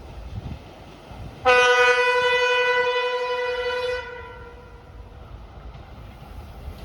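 ChME3 diesel shunting locomotive sounding its horn: one steady blast about a second and a half in, lasting about two and a half seconds, over the low rumble of the locomotive running past.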